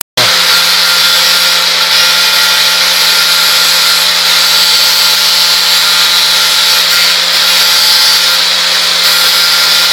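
Electric angle grinder running steadily at full speed, a constant whine over a loud hiss that does not change.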